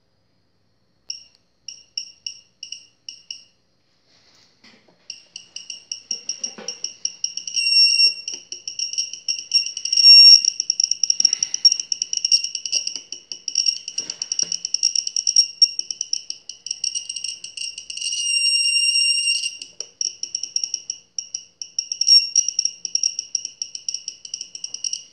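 High-pitched electronic beeping from a small piezo beeper. It starts as a few separate beeps about two a second, then from about five seconds in turns into fast, almost continuous rapid beeping, like an alarm.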